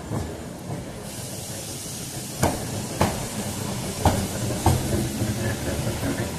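Electric tram, the preserved Leeds double-decker 399, running past close by with a steady hiss and low hum. Its wheels knock sharply on the track four times, in two pairs about half a second apart.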